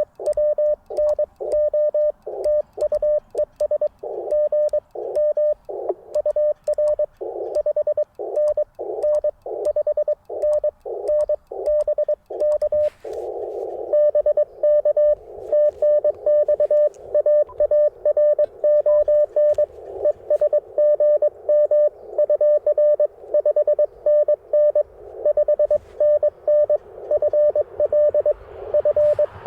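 Morse code (CW) tones at one steady pitch from an Icom IC-705 transceiver, keyed in quick dits and dahs. About halfway through, a narrow band of receiver hiss comes up under the tones: the radio goes from the operator's own sending sidetone to receiving another station's Morse code through a narrow CW filter.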